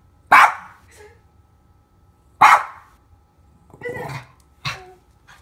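Dog barking: two loud, sharp single barks about two seconds apart.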